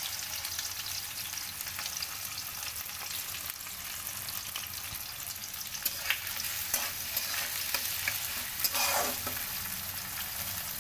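Sliced onions sizzling and crackling in hot oil in a pan, with a spatula scraping and stirring them a few times in the second half.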